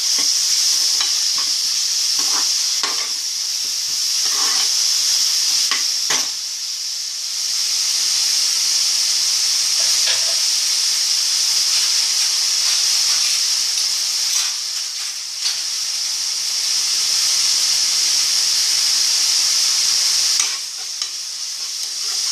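Chopped onions and tomatoes sizzling in hot oil in a pan, with a spoon stirring and scraping through them a few times in the first several seconds.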